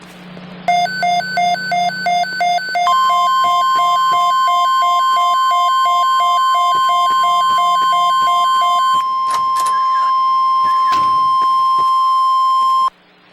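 Emergency-alert tones from a recreated NOAA Weather Radio broadcast. Rapid buzzy electronic beeping, about three beeps a second, runs under a long steady single-pitch warning alarm tone of about ten seconds, which cuts off suddenly near the end; the tone is the weather radio alarm that precedes a watch or warning message.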